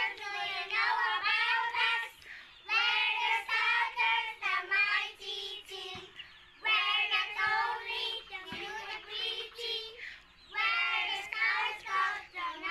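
A small group of young children singing a song together, in phrases with short breaks between them.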